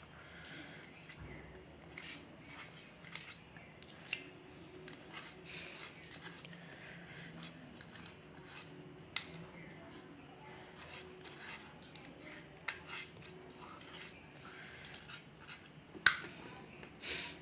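Table knife and fork scraping and clicking against a ceramic plate while cutting boiled chicken into small pieces, in light irregular taps and scrapes, with one sharper clink near the end.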